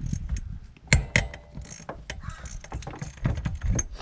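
Socket ratchet clicking as the 10 mm cylinder head stud nuts on a 50cc two-stroke scooter engine are worked loose, with two sharper metal knocks about a second in.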